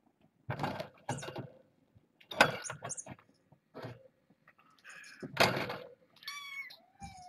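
Kittens playing on a rug with toys: several separate thumps and scuffles, then a kitten's short, high-pitched mew near the end.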